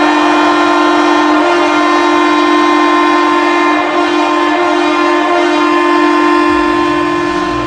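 Ice hockey arena goal horn of the Milwaukee Admirals blowing one long, steady blast, a low two-note chord rich in overtones. It signals a goal scored.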